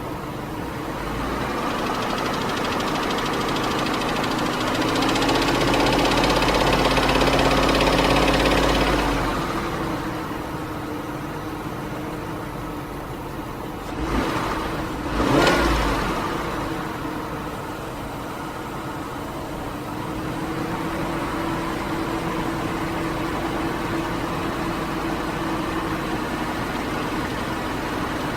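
A 2001 Lincoln Navigator's 5.4-litre 32-valve V8 running with a ticking, tapping noise whose cause the owner doesn't know. Revs rise and are held for a few seconds early on before dropping back to idle, and a short, sharp rev comes about halfway through.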